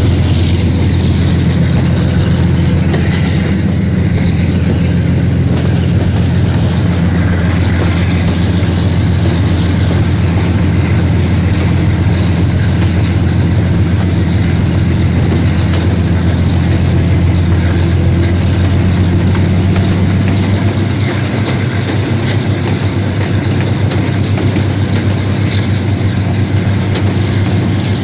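RGE-20 diesel-electric locomotive's engine running hard under load, accelerating the train on the climb: a loud, steady deep drone with a slight shift about twenty seconds in.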